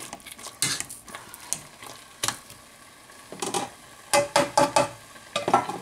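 Wire potato masher working boiled potatoes in a metal pot: separate strokes with clinks of metal against the pot, scattered at first, then a quick run of about five strokes about four seconds in.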